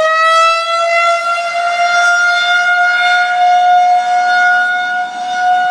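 Federal Signal 2001-130 single-tone outdoor warning siren finishing its wind-up and settling into one steady, loud tone for an Alert signal test.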